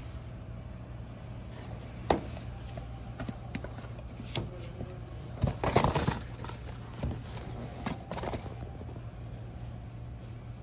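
A cardboard product box being handled and taken from a metal store shelf: a few single knocks, then a louder burst of scraping and rustling about halfway through, and lighter rustling after. A steady low hum sits underneath.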